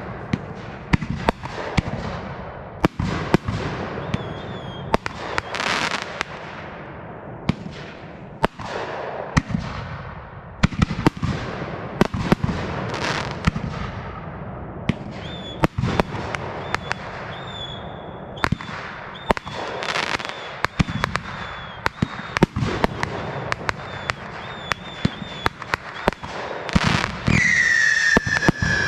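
Aerial fireworks display: shells bursting in a steady string of sharp bangs with crackling in between. Near the end a whistling firework sends out a loud shrill whistle that falls slightly in pitch.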